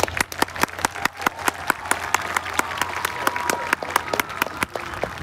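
Audience in stadium stands clapping and applauding: many sharp, irregular individual claps over a thinner wash of applause that slowly dies down.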